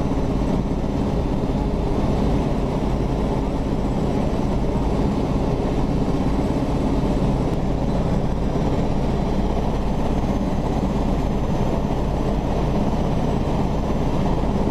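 Steady low drone of an MV-22B Osprey's two turboshaft engines and proprotors, heard from inside the cockpit in flight, with several steady hums running through it.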